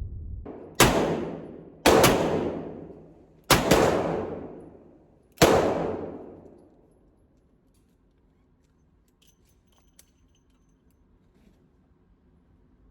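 Four revolver shots fired at an uneven pace, about a second to two seconds apart, each ringing out in a long fading echo; then near quiet with a few faint clicks.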